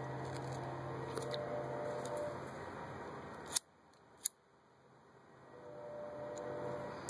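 A steady background hiss with a faint low hum, broken by two sharp clicks about two-thirds of a second apart. After them the sound drops to near quiet and then slowly swells back.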